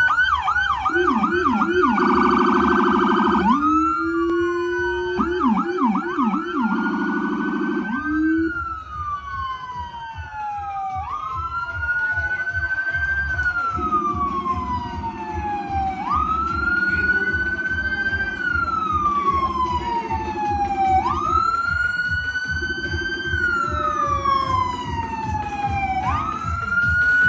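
Police vehicle siren passing: fast yelping sweeps in the first several seconds, then a slow wail that rises quickly and falls away about every two and a half seconds. A lower steady droning tone runs underneath for much of it.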